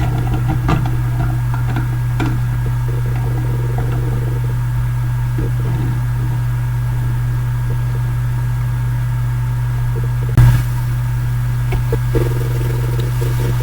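Steady low hum from electronics repair bench equipment, with a single sharp click about ten seconds in.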